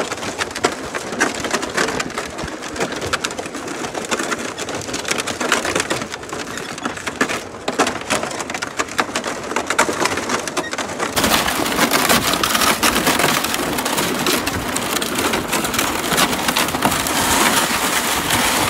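Footsteps crunching and a loaded plastic ice-fishing sled scraping and rattling over snow-crusted pond ice, a dense run of crackles. About eleven seconds in the scraping gets louder and fuller.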